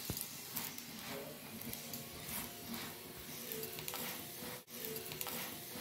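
Oiled paratha sizzling faintly on a hot iron tawa, with light scrapes of metal tongs as it is flipped and pressed.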